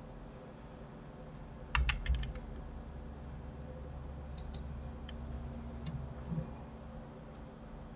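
Computer keyboard and mouse clicking: a quick run of key presses about two seconds in, then a few scattered single clicks, over a low steady hum.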